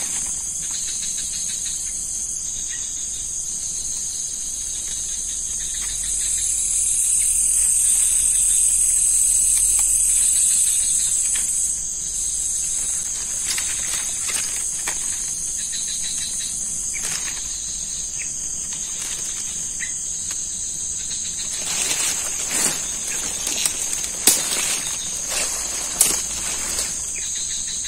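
Crickets and other insects calling in a steady, high-pitched chorus that swells louder for a few seconds about a quarter of the way in. Scattered sharp clicks and knocks come over it in the last several seconds.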